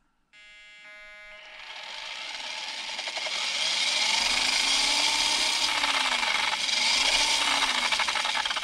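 Electric drive motor and plastic gearbox of an SJ810 Dodo 1/16 toy RC trike whirring as its rear wheels spin freely in the air under proportional throttle. It starts about a third of a second in with a buzzing tone, then grows louder over a few seconds, with its speed rising and falling a few times as the throttle is worked.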